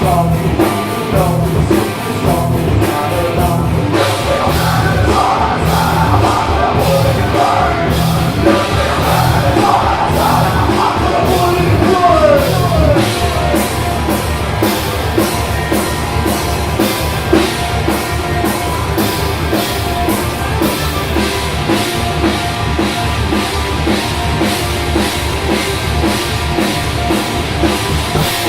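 Live rock band playing loud, with a steady, driving drum kit beat under the other instruments.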